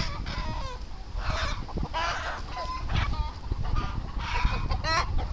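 Chickens squawking and cackling in a rapid series of short, harsh calls: alarm and distress while a goshawk grapples with a hen it has caught. A steady low rumble lies underneath.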